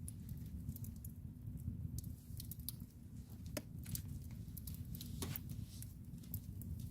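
Wood fire in a fireplace crackling: frequent small sharp crackles over a steady low rumble of the flames, with two louder pops, about halfway through and again about three-quarters of the way through.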